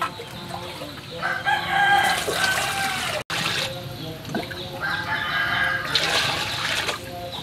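A rooster crowing twice, the loudest sound, and water poured from a plastic scoop into a large metal cooking pot near the end.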